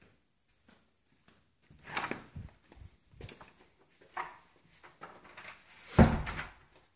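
An interior closet door being opened and handled, with scattered knocks and rustling, then a loud thump near the end as the door is pushed shut.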